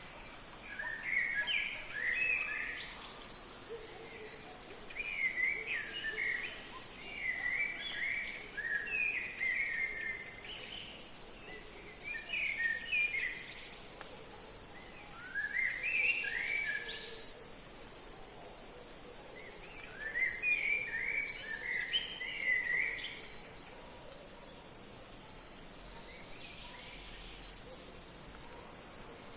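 Rainforest ambience: a high insect call pulsing at an even pace throughout, with bursts of chirping bird song several times over it.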